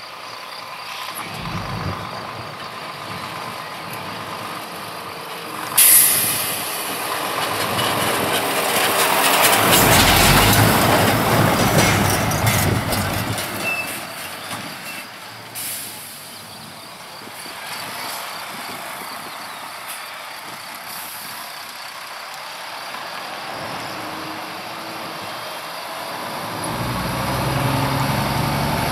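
Scania R 410 tractor-trailer with a 13-litre straight-six diesel passing by. Its engine and tyre noise grow to a peak about ten seconds in, fade away, then build again near the end as the truck comes back. A sudden loud burst of noise comes about six seconds in.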